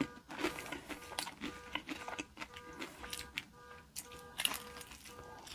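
Close-miked chewing of fast food: wet mouth clicks and crunches in quick succession. Faint electronic tones beep on and off in the background.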